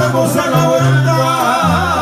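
Live banda music: a tuba (sousaphone) plays a bass line of held notes that change every half second or so, under trumpets and other wind instruments.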